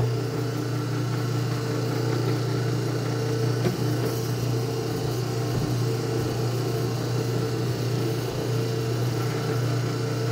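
Hobart commercial stand mixer switched on and running smoothly, its motor and gear drive giving a steady, even hum as the wire whip turns in the empty steel bowl.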